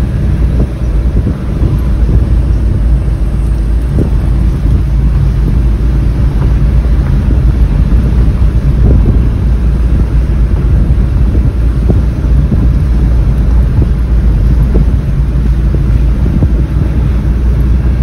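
Car driving along at road speed: a steady low rumble of road and engine noise with wind buffeting the microphone.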